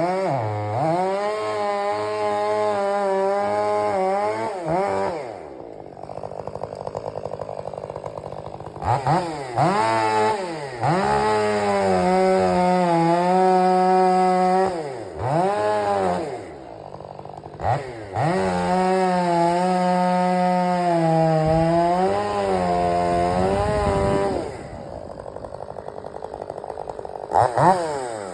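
Stihl 500i fuel-injected two-stroke chainsaw cutting at high revs in long stretches. It drops back to idle three times, for a few seconds each, and is revved up again between cuts, with brief rises and dips in pitch as the chain loads and unloads.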